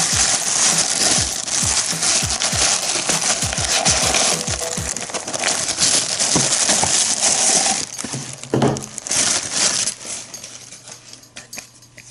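Tissue paper rustling and crinkling loudly as it is pulled out of a gift bag, thick with small crackles, dying down near the end.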